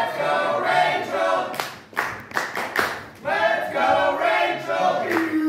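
A small crowd chanting in unison, two chant phrases with a few sharp claps between them. Near the end one voice holds a long steady note.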